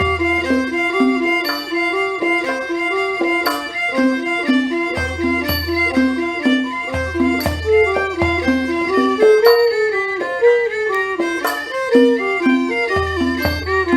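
Thai saw duang and saw u two-string fiddles bowing a quick running melody in a Thai classical ensemble. Sharp percussion strikes come about every two seconds, with low drum beats at times.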